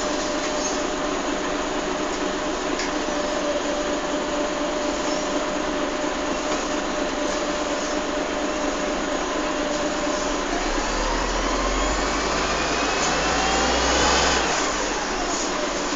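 Volvo Olympian double-decker bus heard from inside the passenger saloon: steady engine and running noise with a constant hum. From about ten seconds in the engine rumble swells and a whine rises in pitch as the bus accelerates, then falls back about a second before the end.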